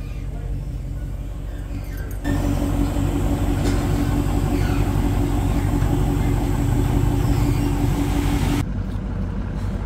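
Dodge Challenger's Hemi V8 idling through a straight-piped exhaust with the mid muffler deleted, a steady deep rumble. It gets abruptly louder about two seconds in and drops back near the end.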